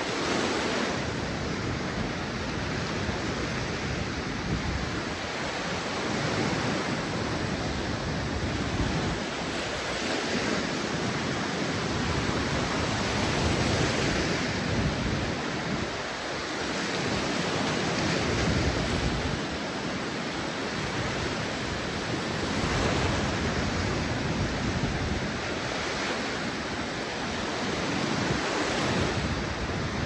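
Small waves breaking and washing up a sandy beach: a continuous rush of surf that swells with each wave every few seconds.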